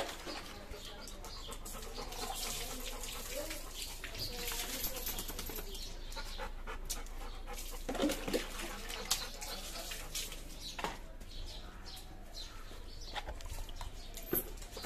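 Wet Rottweiler panting while being rubbed down during a bath, with scattered knocks and rustles; a short louder sound from the dog about halfway through.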